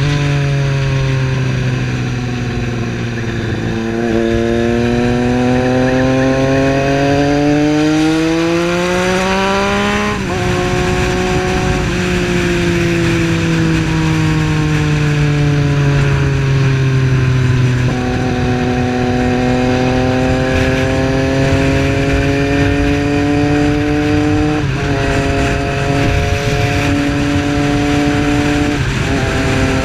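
Triumph Street Triple's 675 cc three-cylinder engine on the move: the revs climb over several seconds and break at a gear change about a third of the way in, then fall slowly as it eases off, with more gear changes in the second half.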